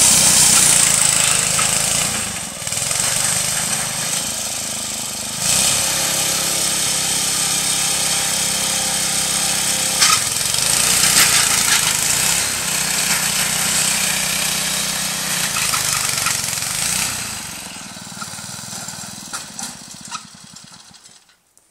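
Small gasoline engine of a walk-behind rotary tiller running as its tines churn through sod and dry grass. The engine note dips and recovers a few times, then fades away over the last few seconds.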